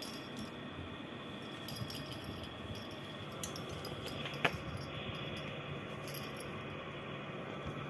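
Small jingles of a kitten's collar bell and scuffling as it wrestles a fish toy in a fabric hammock, with a sharp click about four and a half seconds in, over a steady low background hum.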